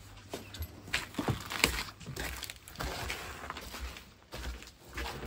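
A door being opened and footsteps going out, with scattered knocks, clicks and the rustle of a nylon jacket.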